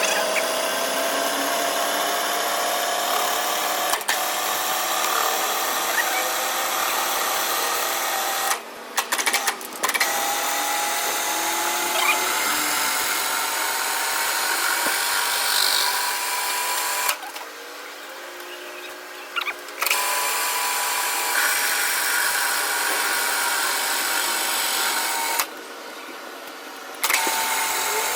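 A CNC machine cuts metal, its tool machining away a weld bead with a steady, high-pitched whine made of several tones that drift slightly in pitch. The cutting drops away three times: briefly about nine seconds in, for about three seconds past the middle, and for a second and a half near the end.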